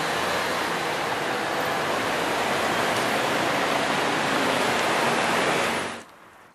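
Steady, loud rushing noise, even across low and high pitches, that cuts off abruptly about six seconds in.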